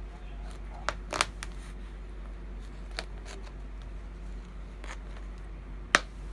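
Knife blade cutting at the rim of a red plastic cup: a few sharp clicks and cracks of plastic, a quick cluster about a second in, single ones later, and the loudest near the end.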